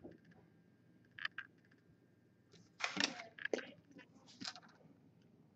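Faint clicks and rustles of hockey trading cards being handled and shuffled, with a short cluster of them about three seconds in.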